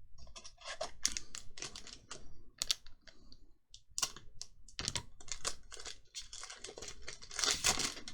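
Magic: The Gathering trading cards being handled and flipped through one after another, a quick run of small clicks and snaps. There is a louder rustling burst near the end.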